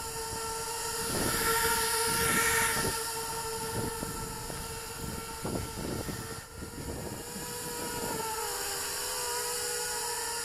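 Small quadcopter's brushless motors running with a steady high whine, over rushing air noise that swells a couple of seconds in. The pitch of the whine wavers and shifts about eight seconds in.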